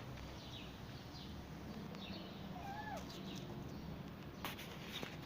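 A cat giving one short, faint meow about halfway through, falling in pitch at its end. Faint high chirps from birds sound now and then, with a couple of light clicks near the end.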